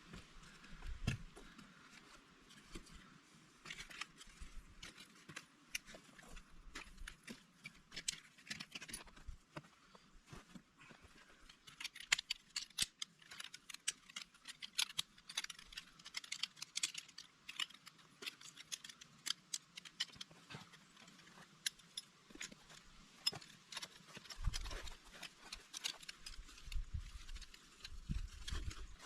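Footsteps crunching through dry leaf litter and twigs on a forest trail: a dense, irregular crackle, with a few low thumps near the end.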